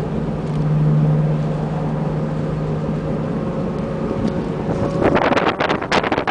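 Nissan 350Z's V6 engine running with a steady drone. About five seconds in, a rapid, irregular series of sharp crackles and bursts begins.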